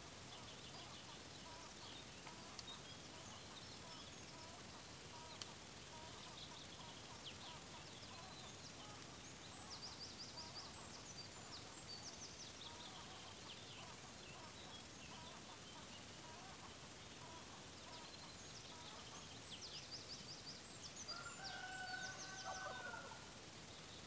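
Faint birdsong: small birds singing in quick trills and repeated high notes, and near the end a longer, lower call held on two pitches. A single sharp tap about two and a half seconds in.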